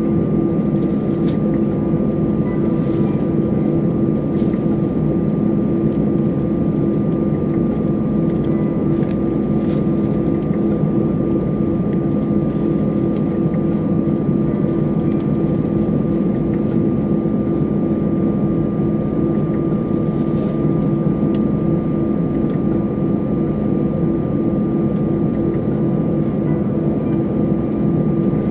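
Steady cabin drone of an Airbus A320 standing on the ground with its engines running at idle: an even hum with a few constant tones in it, neither rising nor falling.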